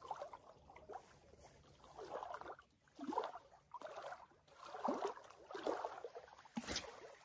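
Small lake waves lapping and splashing against the shore in uneven surges about once a second, with a single sharp click near the end.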